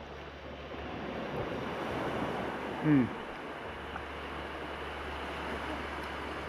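Steady wash of surf on a beach, with wind on the microphone. About three seconds in, a man's voice gives a short 'mm' that falls in pitch.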